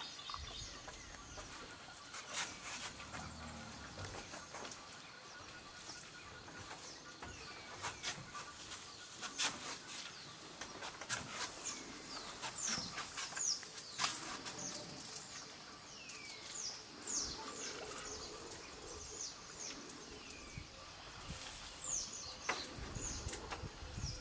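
Tropical forest clearing ambience: birds calling with repeated short falling whistles, in bunches through the middle and near the end, over a steady insect drone and scattered sharp clicks.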